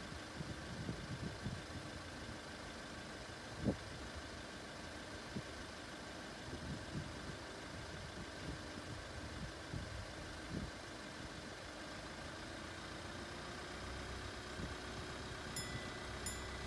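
Car engines idling at a level crossing over a steady background hum, with scattered low knocks and one louder thump about four seconds in. Near the end, light ticks start, repeating evenly.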